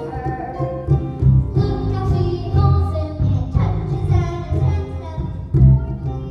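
Young cast singing a musical-theatre number over a full instrumental accompaniment with a strong bass.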